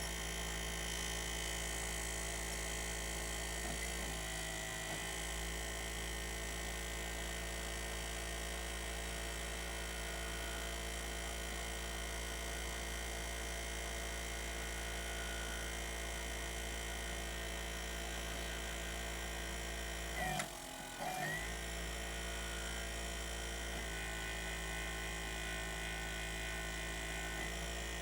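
Sony BDP-S380 Blu-ray drive spinning a disc, a steady hum made of many held tones that sounds unhealthy. It breaks off for about a second two-thirds of the way through, then carries on.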